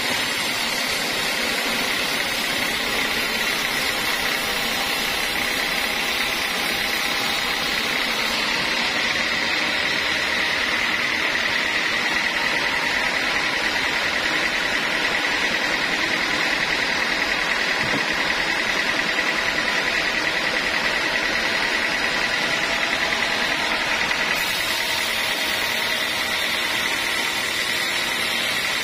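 Band sawmill's blade running and cutting lengthwise through a teak log: a steady, loud mechanical rush with a high whine in it.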